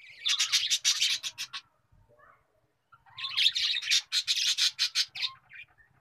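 A bird chirping in two bouts of rapid repeated high notes, the first about a second long and the second about two seconds long, with a short pause between.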